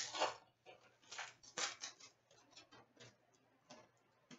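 Hockey trading cards being flipped through by hand: a run of short, irregular, soft rustles and clicks of card sliding on card.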